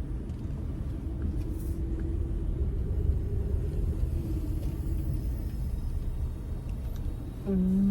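Car idling, a steady low rumble heard from inside the cabin. A short, steady pitched hum comes in near the end.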